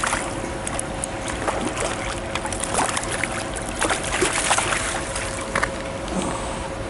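A hooked trout thrashing at the water's surface, then being scooped into a landing net, as several separate splashes, with a steady faint hum underneath.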